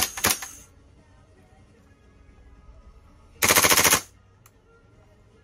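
King Arms Black Rain Ordnance 9mm gas-blowback airsoft carbine firing. Two single shots come at the start, then a short full-auto burst of about a dozen rapid shots about three and a half seconds in. A single light click follows the burst.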